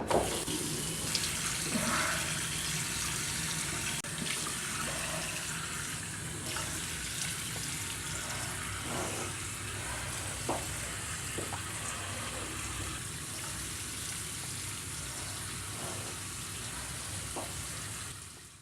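Water running steadily, as from a tap, with a few faint knocks through it; it cuts off suddenly at the end.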